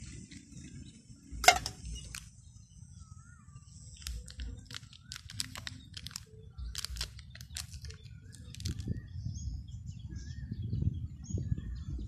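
Hot water pouring from a camping cook pot into a cup, tailing off within the first two seconds, then one sharp metal clank about a second and a half in, then small clicks of handling. Birds chirp now and then, and a low wind rumble on the microphone grows stronger near the end.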